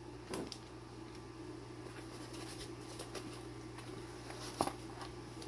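Faint handling of a small cardboard box as its flaps are folded open by hand, with a single sharp tap a little before the end, over a steady low hum.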